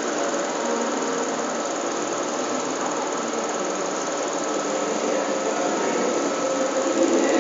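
A machine running steadily: an even whirring drone with a few faint held tones.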